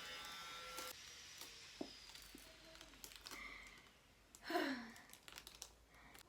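Faint clicks and light handling of a cardboard box after its tape has been peeled off, and a short falling vocal sound about four and a half seconds in.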